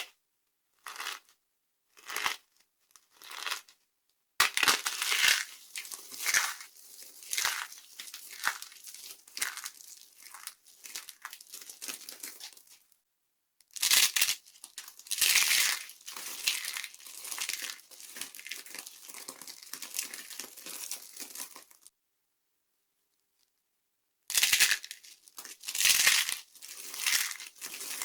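Dry soap being crushed and crumbled by hand: a few separate crunches, then two long stretches of dense crackling crumbling, a brief break of about two seconds, and more crunches near the end.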